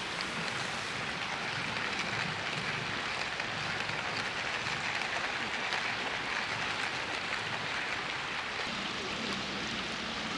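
River water flowing over the shallows, a steady rushing hiss.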